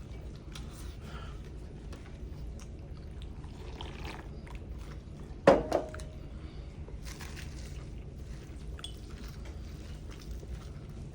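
Noodles and soup being eaten: soft slurps, chewing and small utensil clicks. Just after the middle comes one loud sharp knock with a short ring, like a utensil or bowl striking.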